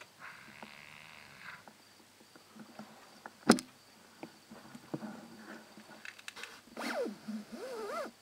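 Rhinoceros giving a high, wavering squeal near the end, over faint shuffling and small knocks on stony ground. A single sharp click about halfway through is the loudest sound.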